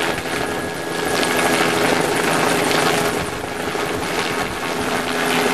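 Helicopter hovering overhead as it lifts a sling load of bagged material off the ground on a long line. Its rotor beats rapidly over steady engine tones, and the sound swells a second or so in as the load comes up.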